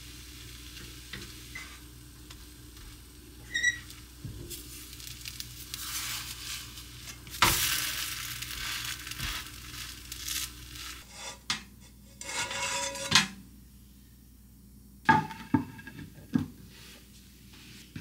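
Spinach tortilla batter sizzling gently in a nonstick frying pan while a spatula scrapes and knocks against the pan, loosening the thin pancake from its surface. The loudest scrapes come about halfway through and again in the last few seconds.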